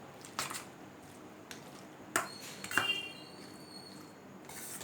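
A few light clinks of a utensil against a bowl while chicken and marinade are mixed, one near the middle ringing briefly.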